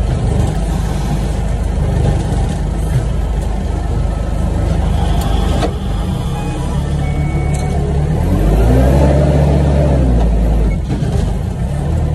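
Forklift running, heard from inside its cab while the hydraulic levers are worked. About eight seconds in the motor speeds up for a couple of seconds, the loudest part, then eases back down. There is a sharp click a little before six seconds.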